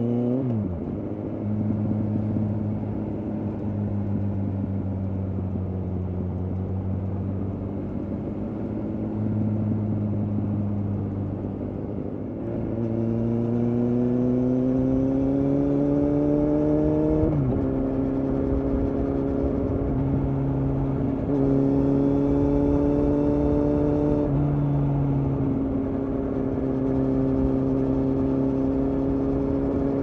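Kawasaki Z800 inline-four through its Akrapovic exhaust, heard from on the bike. It runs at a steady cruise, then accelerates about twelve seconds in with a rising engine note. The note drops sharply at an upshift a few seconds later, and the bike settles back to steady running with another small dip near the end.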